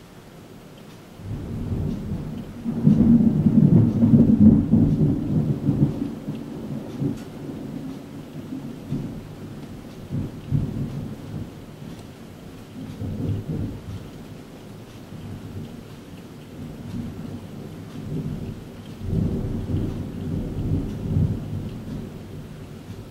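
Thunder rolling: a deep rumble starts about a second in and peaks over the next few seconds. It keeps rumbling in uneven swells and surges again near the end.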